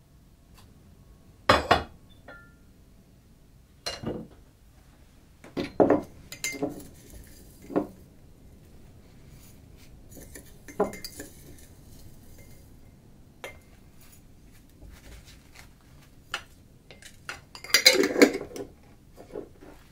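Scattered clinks and knocks of glass jars, ceramic bowls and tins being picked up and set down on a wooden worktable, about ten separate handlings. The loudest cluster, near the end, comes as a metal lid is worked on a glass jar.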